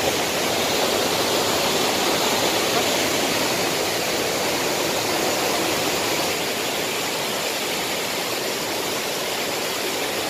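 Steady rushing of a tall waterfall plunging onto rocks.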